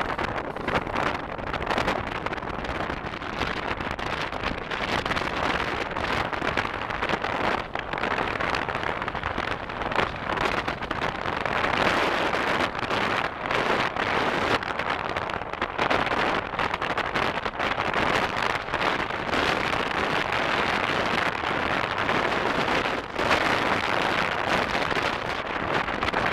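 Train rolling past, a steady rushing clatter of wheels on rail with no distinct engine note, mixed with wind noise on the microphone.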